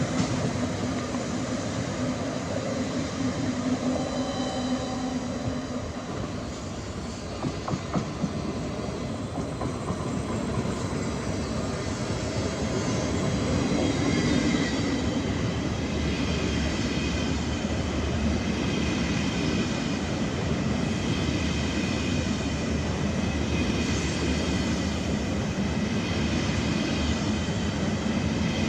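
Electric passenger train moving through the station, a continuous rumble of wheels on rail. A few clicks come around seven to eight seconds in, and from about halfway on a steady whine of several high tones rises out of it.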